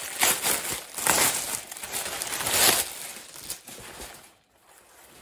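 Clear plastic garment bag crinkling and rustling as a dress is pulled out of it. The rustling is loudest in the first three seconds and then dies away.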